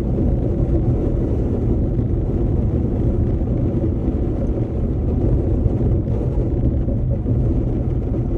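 Steady low rumble of a car driving, engine and road noise heard inside the cabin through a dashcam microphone.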